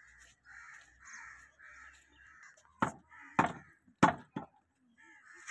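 Crows cawing: fainter calls repeating about twice a second in the first half, then four loud, harsh caws close by in the second half.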